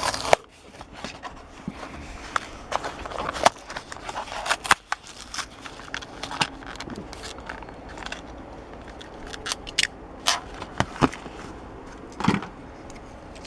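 Plastic blister packaging of a die-cast toy car being opened by hand: irregular sharp crackles and clicks of stiff plastic and card.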